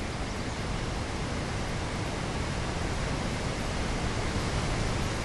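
Steady, even hiss of outdoor background noise, wind-like, slowly growing a little louder, with no distinct events.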